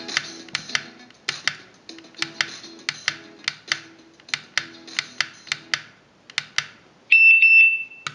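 A song with sharp clicking percussion over low notes, played through a replica Bose SoundLink Mini Bluetooth speaker. About seven seconds in, a loud, steady, high tone sounds for about a second and then cuts off.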